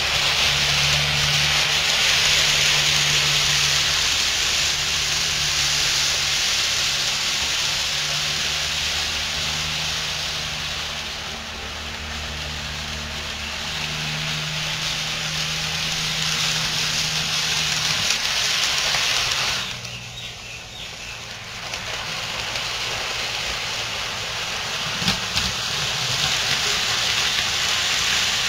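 Model trains running on the layout: a steady hiss of wheels on the rails with a low motor hum that comes and goes in stretches over the first two-thirds. The sound drops away briefly about twenty seconds in.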